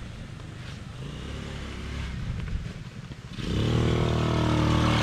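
A child's quad bike engine running, faint at first, then suddenly louder about three and a half seconds in as it revs up and pulls away, holding a steady loud buzz.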